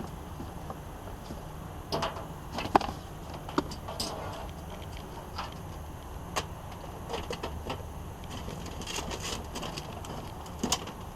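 Scattered knocks, clicks and clatter of discarded electronics and junk being handled and shifted in a dumpster, with the sharpest knocks about three seconds in and near the end, over a steady low rumble.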